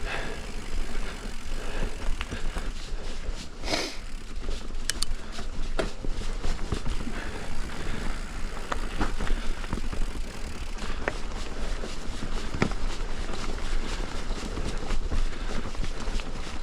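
Mountain bike rolling along a dirt singletrack trail: steady tyre noise with scattered clicks and rattles from the bike over bumps. A brief rushing sweep comes a little under four seconds in.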